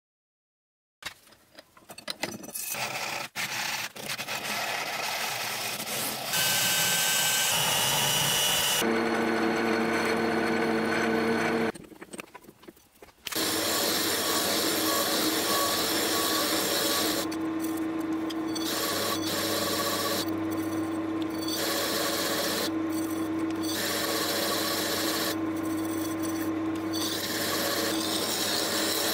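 Milling machine cutting a metal plate, heard as a run of short edited clips: an end mill chewing through the plate and throwing chips, then a large face mill skimming the surface with a steady tone under the cutting noise. The sound begins about a second in, changes abruptly at several cuts, and drops out briefly about halfway through.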